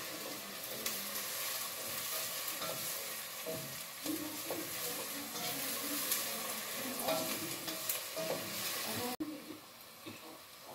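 Silicone pastry brush spreading egg wash over raw dough on a baking tray: soft wet brushing strokes over a steady hiss. The hiss cuts off suddenly about nine seconds in.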